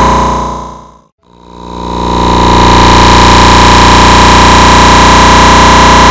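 Peppa Pig's snort sound effect stacked thousands of times over itself into a loud, harsh, distorted drone with a strong steady tone through it. It fades out over the first second, drops to silence for a moment, then fades back in and holds at full loudness.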